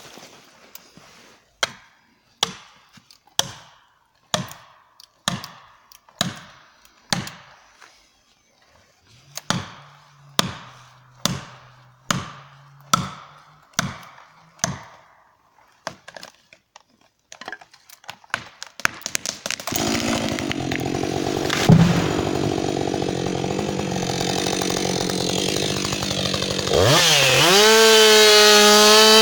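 Repeated blows, a little under one a second, driving a felling wedge into the back cut of a tree that will not fall. Later a Husqvarna 560XP two-stroke chainsaw runs at idle, with one heavy thud, and revs up near the end as it starts to cut.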